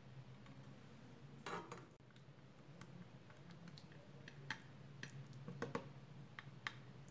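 Metal spoon faintly scraping and clicking against a glass baking dish as minced-meat sauce is spread over lasagna sheets: a short scrape about one and a half seconds in, then scattered light taps, more of them in the second half, over a low steady hum.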